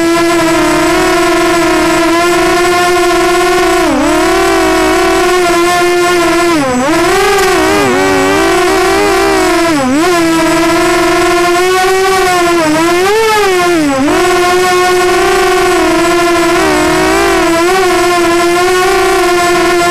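Walkera Runner 250 Advance quadcopter's brushless motors and propellers whining loudly, recorded by the onboard camera. The pitch holds steady, then dips sharply and recovers several times as the throttle changes.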